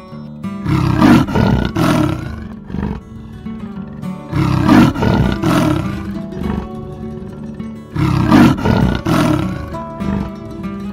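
A big cat roaring in three loud bouts of rough, rasping calls, each of two or three strokes and a few seconds apart, over background music.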